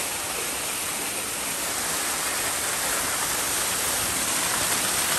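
Waterfall's rushing water, a steady even roar that grows slightly louder.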